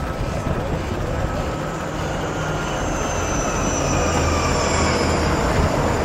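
A city bus passing close in the opposite direction, its high drive whine falling in pitch as it goes by and its rumble loudest a little after the middle. Underneath is the steady rumble and wind noise of riding a bicycle on pavement.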